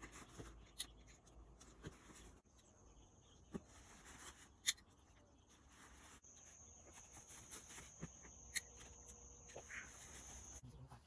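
Near silence: a few faint scattered clicks, and a faint steady high-pitched tone from about halfway through that stops shortly before the end.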